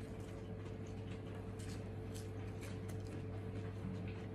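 Someone chewing a mouthful of fried-bread sandwich, faint irregular crunchy clicks, over a steady low electrical hum.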